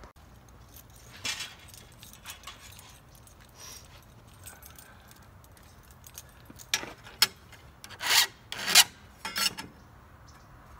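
Steel saw-blade pieces scraping and rasping against each other as they are handled. A few faint scrapes come first, then a quick run of louder, short scrapes about two thirds of the way in.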